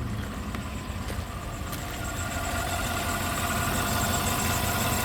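A 2015 Chevy Suburban's 5.3-litre V8 idling steadily after a water pump replacement. A faint steady whine grows a little clearer about two seconds in.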